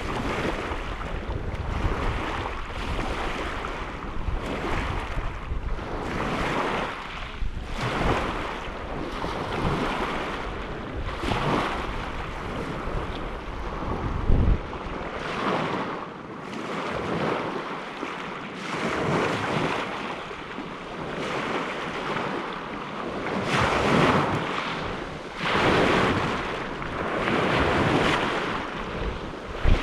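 Lake waves breaking and washing onto the shore in a series of surges about every two seconds. Wind buffets the microphone with a low rumble through the first half, ending after a single thump about halfway through.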